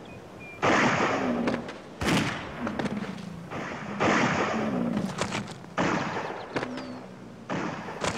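Rifle shots fired one after another, about six in all, roughly every one and a half to two seconds. Each starts suddenly and rings on for about a second as it dies away.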